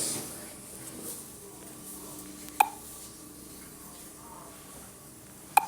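Passenger lift in operation: a faint steady hum, broken twice by a sharp click with a brief ping, about three seconds apart.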